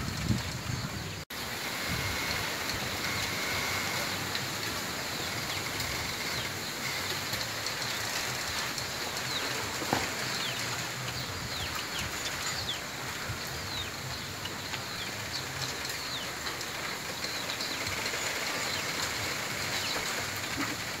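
Wind rushing steadily through a bamboo grove's leaves, with short, high bird chirps throughout. One sharp crack of a bamboo culm stands out about ten seconds in.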